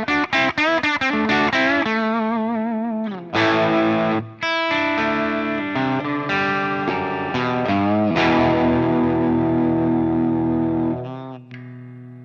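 Harley Benton SC-DLX electric guitar on its middle pickup position, played with overdrive through a Hotone Ampero One modeler on a Mesa Boogie Mark IIC+ amp preset. It plays quick lead notes with vibrato, then a long held note from about eight seconds in that rings out and fades near the end.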